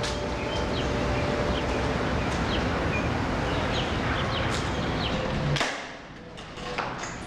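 Wind rushing steadily over the microphone, with a few short bird chirps. It cuts off about five and a half seconds in, leaving a quieter indoor room with a few light clicks.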